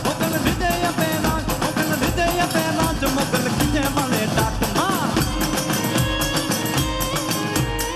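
Live raas-garba dance music from a stage orchestra: a fast, steady drum beat under a melody line. A sliding note comes about five seconds in, and long held tones follow from about six seconds on.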